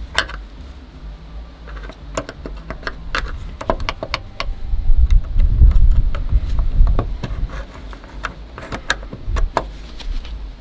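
Irregular clicks and light knocks of small metal parts being handled and worked, over a low rumble of wind on the microphone that swells in the middle and is the loudest sound.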